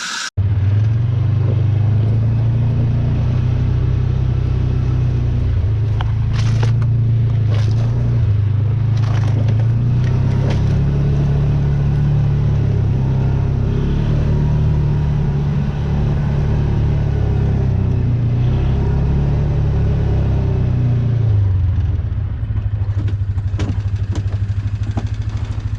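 A vehicle engine running, its pitch rising and falling a little, then settling to a lower, steadier running note about 22 seconds in. A few knocks and rattles sound over it.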